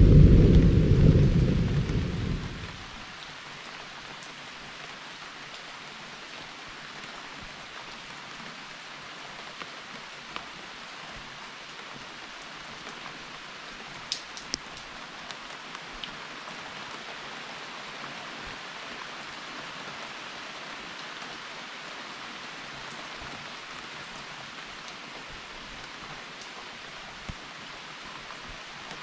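A low thunder rumble dies away over the first two or three seconds, followed by steady rain with a few sharp drip ticks.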